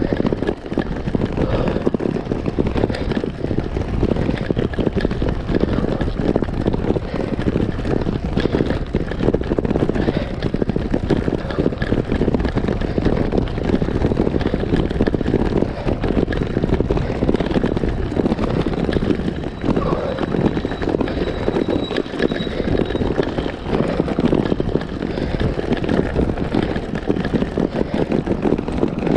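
Road bike riding over cobblestones: a continuous, dense rattling clatter of tyres, frame and fittings juddering on the pavé.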